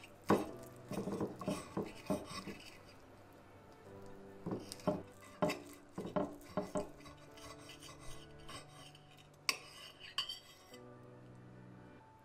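Knife and fork cutting through a stuffed baked potato and clinking and scraping on the plate, in three bouts of clicks and scrapes: one at the start lasting about two seconds, one in the middle, and a short one about ten seconds in. Soft background music plays underneath.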